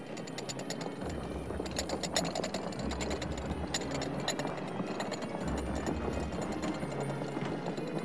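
A column of soldiers marching in boots over stone steps and paving: a dense clatter of many footsteps, with a low rumble coming and going underneath.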